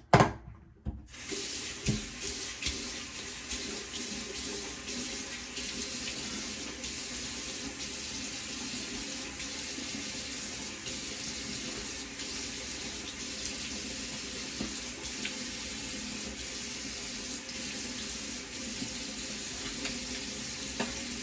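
Water running steadily from a sink tap while hands splash it onto the face to rinse off shaving lather.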